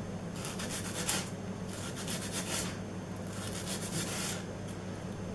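Kitchen knife slicing down through a scored onion on a wooden cutting board, cutting it into small even dice. Three short runs of rapid, crisp cutting strokes.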